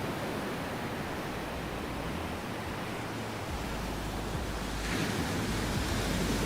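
Sea waves heard from under the water: a steady rushing noise with a low rumble beneath, swelling louder about five seconds in.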